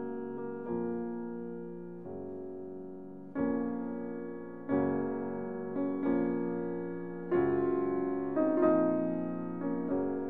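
Gentle background piano music: chords struck about once a second, each dying away slowly.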